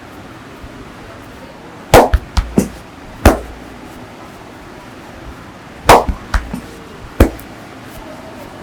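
Sharp hand slaps on the body during a massage, in two quick runs of four or five slaps about four seconds apart.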